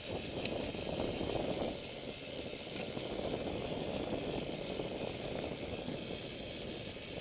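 Wind buffeting the microphone: a rough, steady rushing noise that comes up suddenly at the start and is loudest for the first couple of seconds, with a couple of faint clicks.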